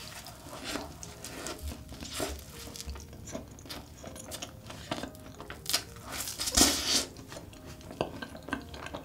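Close-miked eating sounds of biting into and chewing a large custard-filled cream puff coated in melted Nutella: soft, wet mouth sounds with scattered small clicks and smacks. One louder smack comes about two thirds of the way in.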